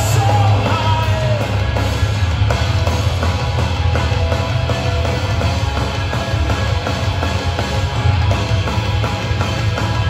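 Metalcore band playing live at full volume: distorted electric guitars, bass and drums, with a heavy low end, heard from within the crowd.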